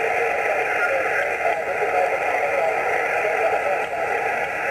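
Yaesu HF transceiver's speaker, tuned to about 14.21 MHz on the 20-metre amateur band, giving a steady hiss of static with a weak, unreadable voice faintly in it.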